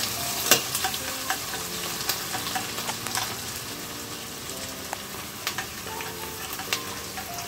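Chopped onions sizzling in hot oil in a stainless steel kadhai, with a metal spoon clinking and scraping against the pan every second or so as they are stirred. The onions are being fried until they change colour.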